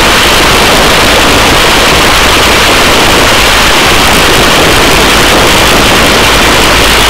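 Helicopter in a steady hover, its rotor and turbine noise loud and unbroken with heavy hiss, heard at the open cabin door.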